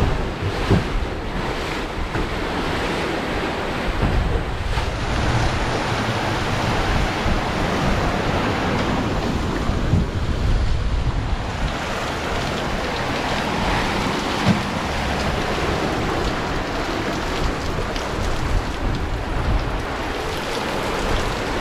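Wind and open-sea noise aboard a sailing catamaran in strong wind: waves rushing past and wind buffeting the microphone, with a couple of brief knocks.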